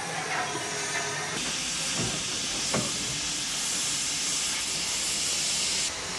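A steady, even hiss with no clear pitch, with two faint knocks about two and nearly three seconds in.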